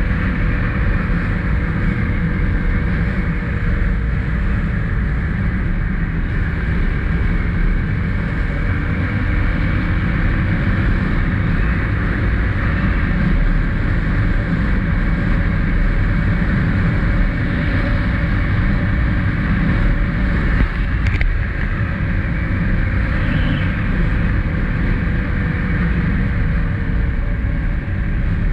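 2021 SSR XF250 motorcycle's single-cylinder engine running steadily while riding, its pitch drifting gently up and down with the throttle, under a constant rush of wind on the microphone.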